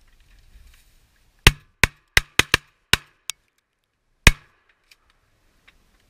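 A volley of shotgun shots from several guns firing at ducks: seven shots in under two seconds, then one more about a second later.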